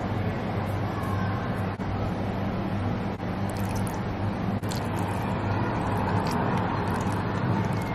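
Steady low hum and hiss of a running machine, with faint sharp clicks about once a second.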